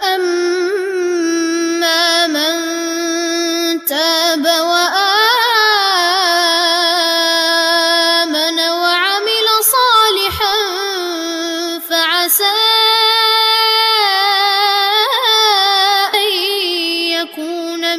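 A young boy chanting Quran recitation in the Warsh reading, with long held notes and ornamented melodic turns. He pauses briefly for breath about four seconds in and again near twelve seconds.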